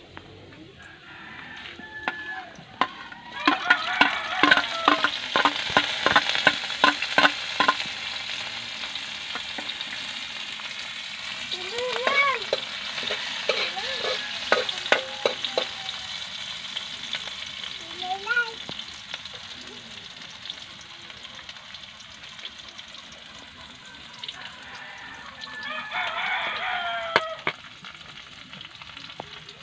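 Chopped onion frying and sizzling in hot oil in a metal wok over a wood fire, starting about three seconds in, with a burst of sharp spattering clicks over the next few seconds and the scrape of stirring. A few short pitched calls come through in the background.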